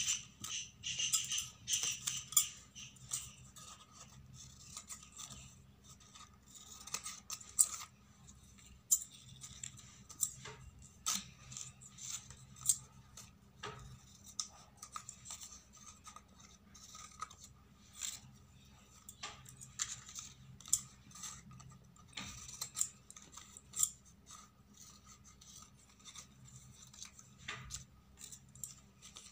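Large steel scissors snipping through layered yellow craft paper, with irregular sharp snips and clicks of the blades.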